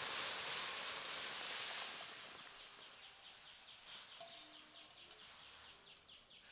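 Boiled moong dal with vegetables hitting a hot mustard-oil tempering in a kadai: a loud sizzle that dies down over the first two seconds or so. After that, faint short chirps falling in pitch repeat about three times a second.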